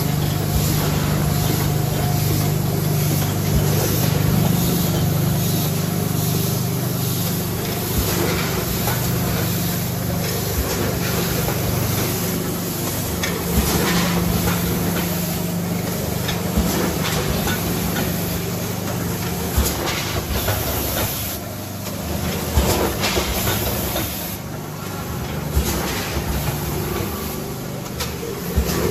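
A multihead weigher and vertical packing machine running on rice: a steady low hum under a hiss of flowing grain, with a constant patter of clicks and clacks from the machinery. The hum drops away about twenty seconds in.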